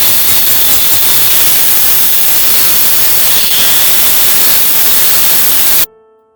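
Food sizzling in a hot frying pan, a loud steady hiss that cuts off suddenly near the end.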